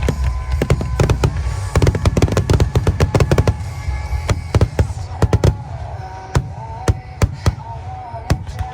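Fireworks going off in quick succession: a dense run of sharp cracks and bangs over a low rumble, thinning out over the second half. Music plays underneath and becomes clearer as the bangs thin.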